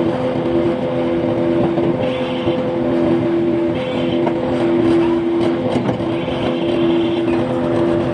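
Forklift engine running with a steady hum while the forklift sets down a pallet load and backs away.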